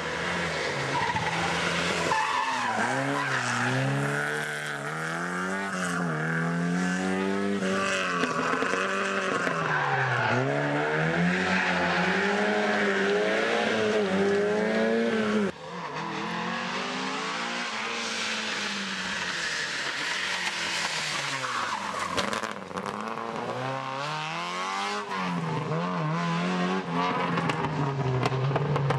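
Historic rally cars' engines revving hard and lifting off through tight hairpin corners, the engine note climbing and falling again every couple of seconds.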